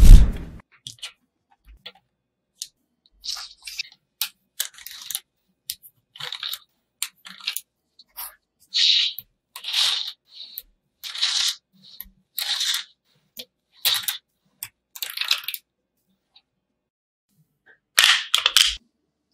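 Small magnetic metal balls clicking together as rows of them are snapped into place by hand: a sharp click about every second, with a quick cluster of clicks near the end. A loud low thud at the very start.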